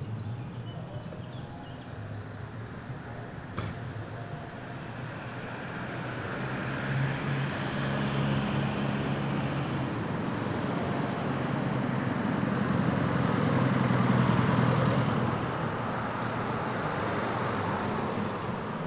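A motor vehicle drives past on a street: its engine hum and tyre noise build over several seconds, peak about three quarters of the way in, then fall away over a steady background of traffic.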